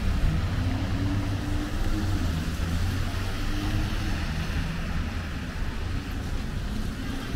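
Downtown street traffic: passing and idling vehicles make a steady low rumble with a faint engine hum.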